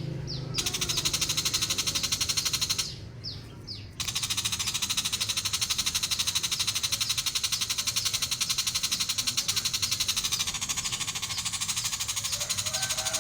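Shrike (pentet) giving a harsh, fast, rattling chatter that runs on with an even pulse, breaking off briefly about three seconds in, where a few thin falling chirps are heard.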